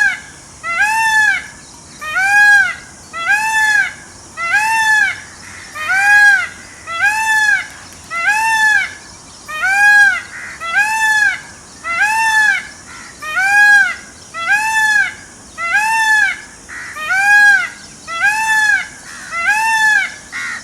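Peacock calling over and over in a steady series of short cries, about one a second, each rising then falling in pitch.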